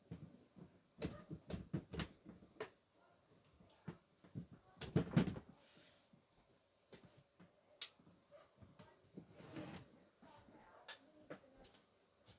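Objects being handled: scattered sharp clicks and knocks, bunched in the first few seconds, with a louder rustle about five seconds in and another a little before the end.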